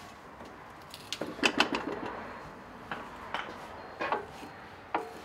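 Sheet metal being rolled through a slip roll: irregular metallic clicks and clanks from the rollers and gearing, with the loudest quick cluster about a second in and single knocks every second or so after.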